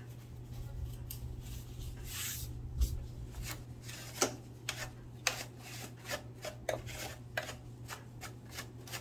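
Short rubbing and scraping strokes from hand-cleaning the inside of a Singer sewing machine, coming in quick irregular succession through the second half, over a steady low hum.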